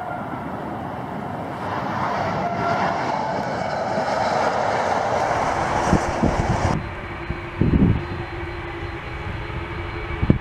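Boeing 747-8 jet engines (GEnx) running. After about seven seconds a sudden change leaves a steady whine, with a few low thumps of wind on the microphone; the rushing noise before that comes while the intro graphic is still on screen.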